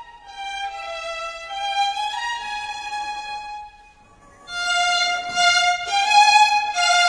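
Music: a solo melody on a single instrument, moving from held note to held note, with a short pause about four seconds in.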